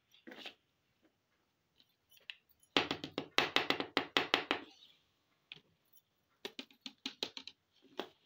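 Small plastic toy cutlery clicking and clattering as it is handled and set down on a table: a quick run of rattling clicks a few seconds in, then a shorter cluster of taps later on.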